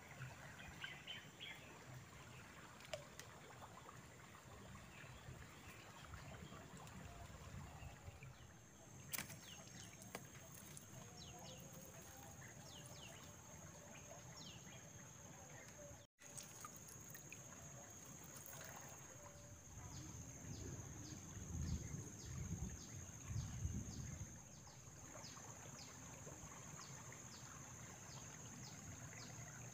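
Faint riverside ambience: a steady high-pitched insect drone with scattered short chirps, which settle into a quick series of about two or three a second over the last few seconds. There is a low rumble around two-thirds of the way through.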